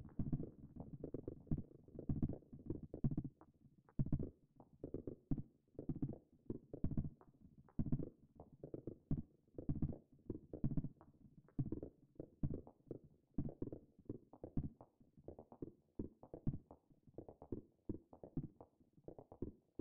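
Short, low knocking and tapping hits from a modal synthesizer (Native Instruments Reaktor Prism) playing a percussive pattern in an uneven rhythm, several hits a second with brief gaps.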